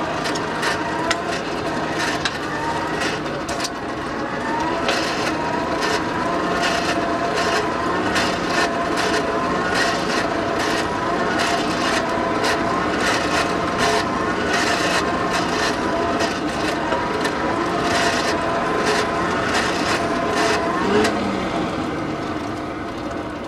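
Forge blower running to feed air to a coal fire: a steady whirring whose pitch wavers up and down, with irregular clicks over it. It slows and fades near the end.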